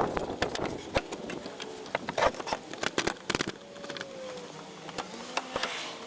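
Scattered light clicks and taps of hands handling the sheet-metal burner housing of a propane camper fridge.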